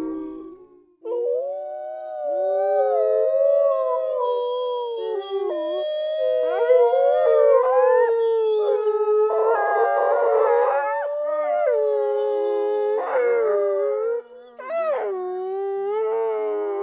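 A dog howling in long, drawn-out howls that slide up and down in pitch, with a few rougher, raspier stretches. The howling breaks off briefly about a second in and again near 14 s before resuming.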